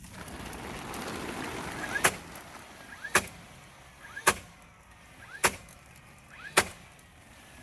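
Hammer blows, five sharp strikes about a second apart, from work on a chicken coop.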